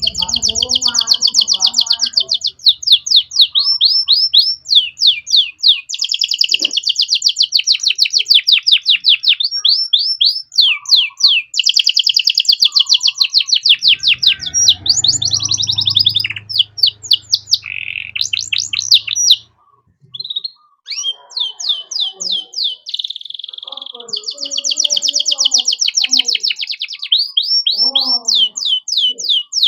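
Domestic canary singing a long, unbroken song of rapid trills and rolling phrases, changing from one repeated-note pattern to another every second or two, with a brief pause about twenty seconds in.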